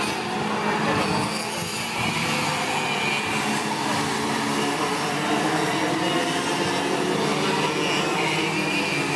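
Several racing karts' two-stroke engines buzzing together as a pack passes through the corners, their overlapping notes rising and falling with the throttle.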